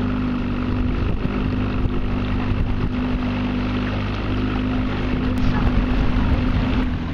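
A motorboat's engine running at a steady cruising speed, a constant low drone, with wind rumbling on the microphone.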